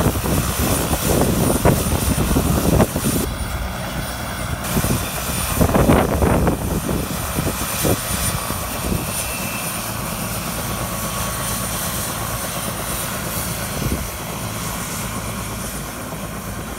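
Helicopter running on the ground, its engine and two-blade rotor making a steady noise with a thin high whine held throughout. There are a few louder low surges in the first three seconds and around six seconds in.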